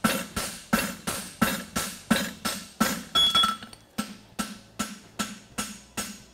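Hammer blows on a red-hot steel horseshoe lying on an anvil, in a steady rhythm of about three strikes a second, each with a short metallic ring. The blows flatten the shoe and set its forge-welded corners.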